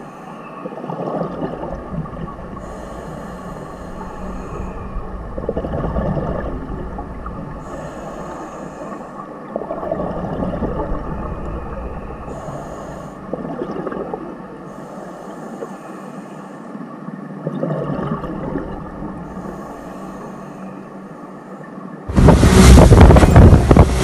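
Underwater recording of strange sounds: swells that rise and fall every two to four seconds over a steady hum. Some took these for a human voice, though a diver on scuba cannot speak. About 22 seconds in, a much louder rushing noise cuts in suddenly.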